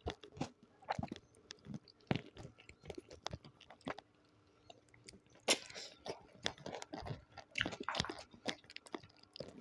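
Close-miked chewing and crunching of food in the mouth: quick, irregular crunches and wet clicks, with a short lull about four seconds in.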